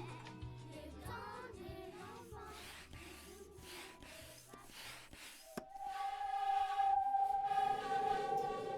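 Children making sound effects with their voices: soft vocal sounds and several whooshing sweeps, then a sharp click and a single high note held for about three seconds.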